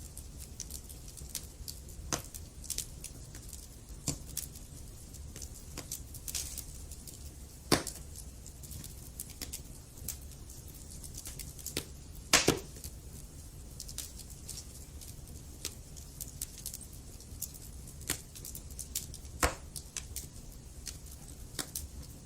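Wood fire burning in a fireplace: a steady low rumble of flame under irregular sharp crackles and pops. The loudest pops come about 8 seconds in and, as a double pop, about halfway through.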